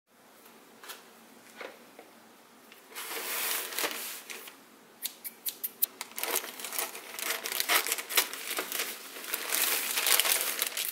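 Thin plastic courier mailer bag crinkling and rustling as it is cut open with scissors and handled, with many sharp snips and crackles. Faint at first, the crinkling gets much louder about three seconds in and keeps going.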